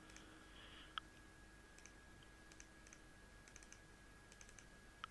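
Two faint computer mouse clicks, one about a second in and one near the end, over near silence.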